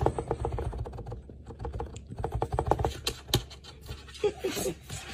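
A kitten's claws scratching and tapping on a cardboard box, a quick run of small clicks.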